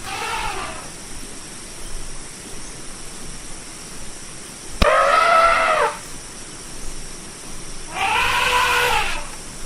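Elephant trumpeting: three calls of about a second each, arching up and then down in pitch. The first is faint at the start, a loud one begins abruptly about five seconds in, and another loud one comes near the end.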